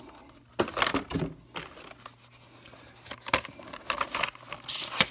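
Hot Wheels blister-pack cards being handled and flipped through by hand: cardboard and plastic rustling and clacking in short, irregular bursts.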